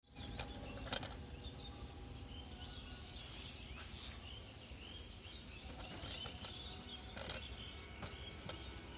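Birds chirping over a steady low background rumble, with a few sharp clicks scattered through.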